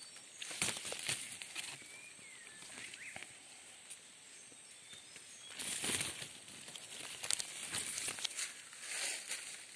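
Leaves and thin branches rustling and brushing as someone pushes through dense undergrowth, with scattered cracks and crunches from dry leaf litter underfoot; the rustling swells about six seconds in and again near the end.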